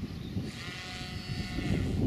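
Gusty wind buffeting the microphone, with a farm animal's long, steady call about half a second in that lasts about a second.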